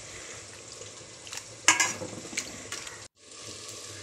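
Steady sizzle of sliced onions frying in oil in a cooking pot, with a few sharp clinks of a utensil against the pot, the loudest a little under two seconds in. The sound cuts out for a moment about three seconds in and the sizzle picks up again.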